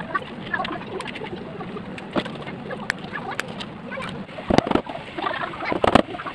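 Small clicks of nails and tools being handled at a workbench, then a few sharp claw-hammer blows on wood, in two clusters about four and a half and six seconds in.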